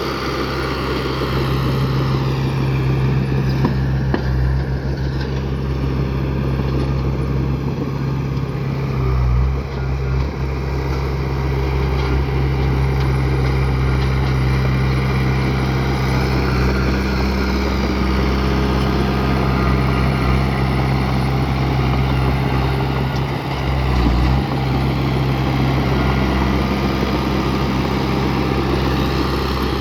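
Heavy earthmoving equipment's diesel engine running steadily, its note dipping briefly twice.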